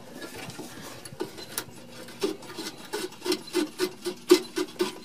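Metal rasping clicks from the old front brake hose fitting being worked loose at its frame bracket, quiet at first, then a quick run of about four strokes a second from about two seconds in.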